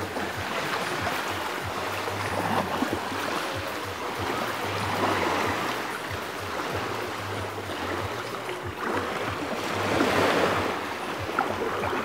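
Small waves washing onto a sandy beach, the wash swelling and fading every few seconds.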